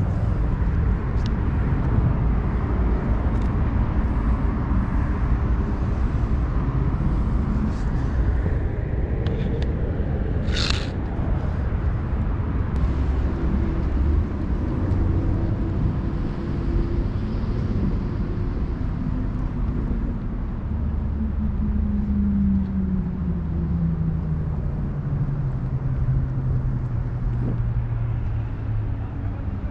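Motor vehicle engine running amid a steady low outdoor rumble. Over the last several seconds its pitch slides steadily down, as when a vehicle slows or moves away. There is a brief high-pitched sound about eleven seconds in.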